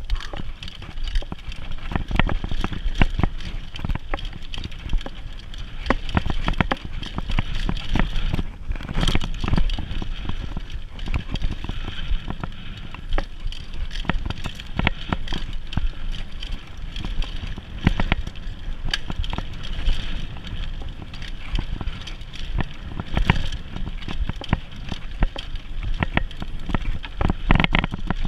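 Mountain bike ridden fast over dirt singletrack: a continuous rumble of tyres on the trail, with constant irregular rattles and knocks from the bike over bumps.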